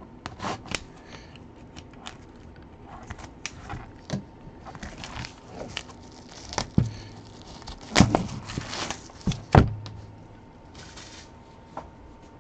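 Cellophane shrink-wrap being torn and peeled off a sealed cardboard trading-card box: scattered, irregular crinkling and crackling. A few sharper knocks, the loudest sounds, come about eight and nine and a half seconds in.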